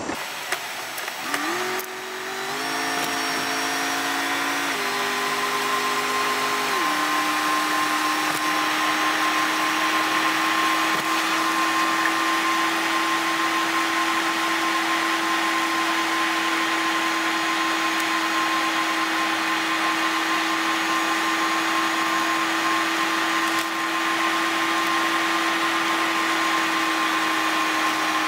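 Steady whine and hum inside a truck's cabin while driving. Its pitch steps up and down a few times in the first several seconds, then holds level over a constant hiss.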